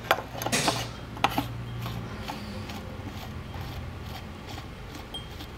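A few sharp clicks and a short scrape of metal shock parts being handled and screwed together, over a steady low hum.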